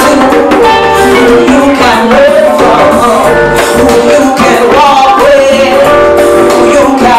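A woman singing live into a microphone, holding and bending long notes, backed by a live band with a keyboard.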